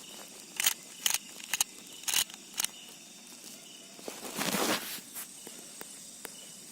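Night insects chirping faintly and steadily. Five short sharp noises come in the first three seconds, and a longer rustling noise follows about four and a half seconds in.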